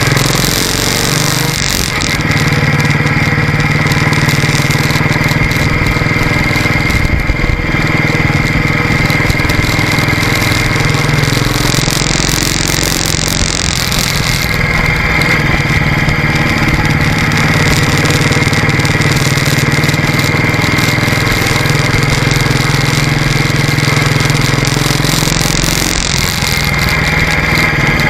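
Motorcycle engine running steadily while under way, with a steady hiss of wind and tyre noise over it.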